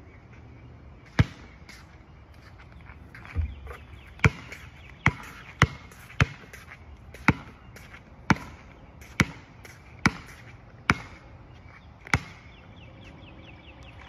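Basketball bouncing on a hard outdoor court: about a dozen single sharp bounces, unevenly spaced roughly a second apart.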